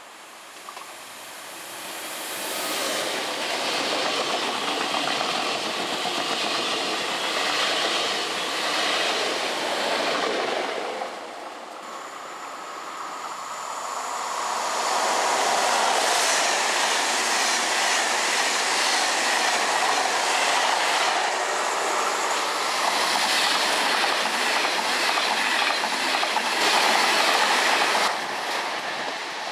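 A Z2N double-deck RER D electric train passes at speed without stopping, with a loud rush of wheel and rail noise that swells and then falls away about eleven seconds in. About fourteen seconds in, a TGV high-speed train comes through, even louder, and holds until near the end.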